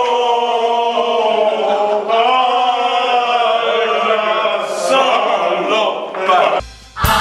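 A group of men singing a French drinking song together, holding long drawn-out notes in chorus. The singing fades out near the end.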